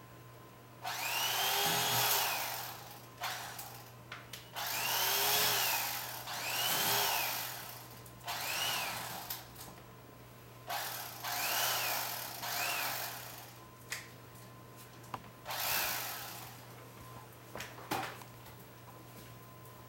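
Electric carving knife slicing a roast turkey, run in about seven short bursts of a second or two each. Its motor whine rises as it starts and falls as it stops.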